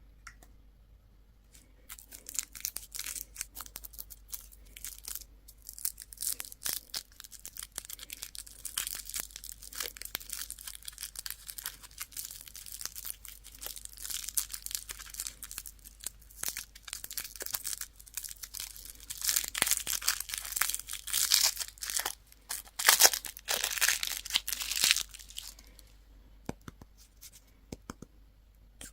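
Candy wrapper being torn open and crinkled by hand, a dense run of crisp crackles that starts about two seconds in, grows loudest late on, then dies away a few seconds before the end.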